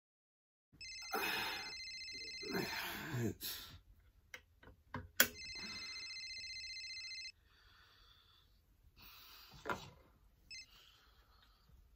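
Mobile phone ringtone ringing twice, each ring a steady electronic tone lasting about two to three seconds, with a sleepy groan under the first ring. Between the rings come scattered clicks and knocks, one sharp, as someone fumbles in bed for the phone.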